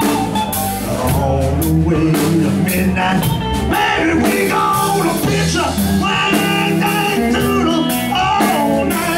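Live blues-rock band playing: two electric guitars and a drum kit, with a man singing into the microphone.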